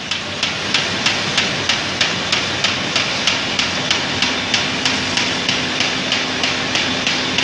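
CHM-1400 rotary paper sheeter running at speed as it cuts paper rolls into sheets. A steady mechanical rush is broken by a sharp, regular click about three times a second, with a faint steady hum joining about three seconds in.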